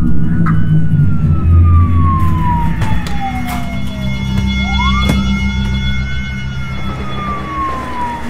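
Emergency vehicle siren wailing: two slow cycles, each rising quickly and then falling slowly over about four seconds, over a steady low drone.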